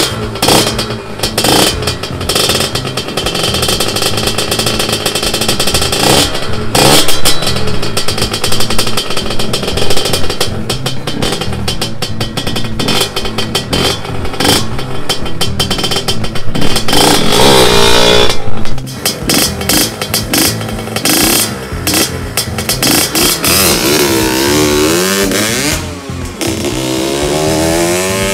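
Kawasaki Ninja 150 RR two-stroke single-cylinder engine catching from a kick start on a cold start, then running and being revved up and down several times. Near the end it drops away as the bike rides off.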